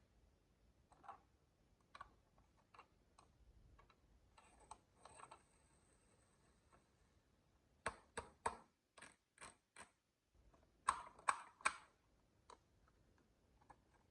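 Marbles clicking and clacking against each other and a marble run track: a few light ticks at first, a quick run of clicks about eight seconds in, and three louder clacks about eleven seconds in.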